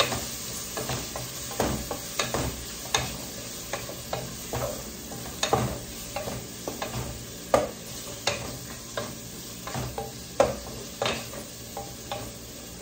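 Wooden spatula stirring and scraping whole shrimp around a pot, with irregular knocks against the pot and the sizzle of the shrimp frying in oil and margarine with garlic, ginger and onion.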